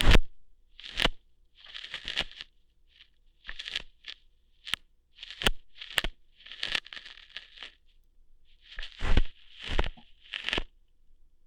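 ASMR ear-hair plucking sounds: a string of short crackling, tearing snaps, about one a second at uneven intervals. A few of them are louder and come with a low thump, the loudest right at the start and about nine seconds in.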